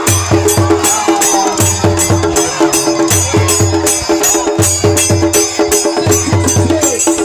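Lively music with a fast, steady beat: sharp percussion strokes on every beat over low drum thumps and sustained held notes.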